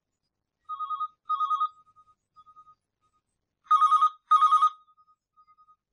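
Telephone ringing with a double ring: two pairs of short trilling rings, each pair followed by a brief echoing tail. The second pair, near the end, is louder than the first.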